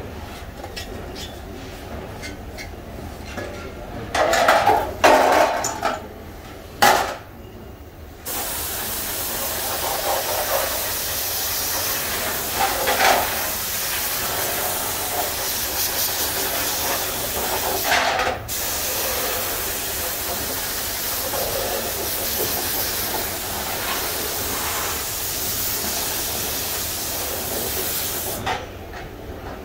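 Compressed-air spray gun spraying paint onto a steel motorcycle seat base: a steady hiss that starts about eight seconds in, breaks off once briefly near the middle and stops near the end. Before it, a few knocks and clicks.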